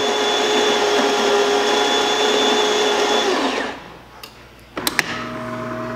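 DeLonghi Magnifica's built-in burr grinder running steadily, then winding down with a falling pitch and stopping about three and a half seconds in. After a pause there are a couple of sharp clicks, and a lower steady hum starts as the machine moves into its brew cycle, with pre-brewing.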